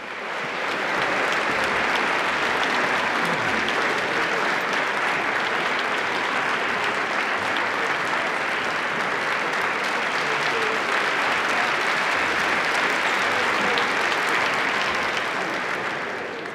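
Large concert-hall audience applauding steadily: a dense clatter of many hands that swells within the first second and begins to die away near the end.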